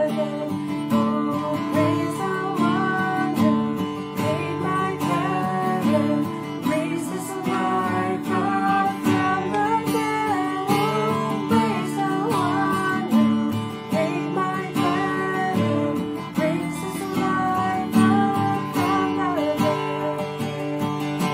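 A worship song: acoustic guitar strummed steadily under a woman's singing voice.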